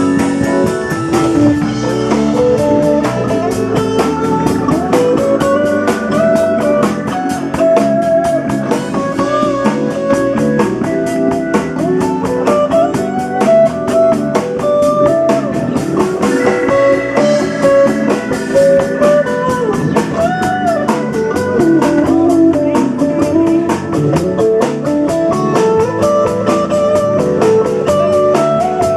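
Live band playing an instrumental passage: a lead guitar melody with bent notes over a drum kit and backing instruments.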